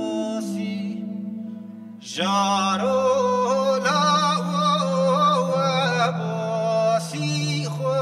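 Clarinet playing a slow Kurdish folk melody with pitch bends over acoustic guitar accompaniment. The melody eases off just before two seconds in, then comes back louder and fuller.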